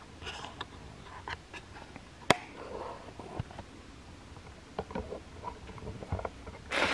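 Faint scattered clicks and taps, with one sharp click about two seconds in and a rustling noise near the end: handling noise from a hand-held camera being carried and swung around an empty room.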